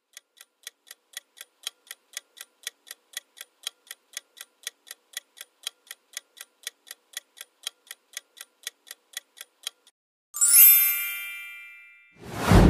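Countdown-timer clock-ticking sound effect, about four ticks a second for ten seconds, marking the time left to answer. The ticking stops and a chime rings out and fades as time runs out. Near the end a loud whoosh transition plays as the answer is revealed.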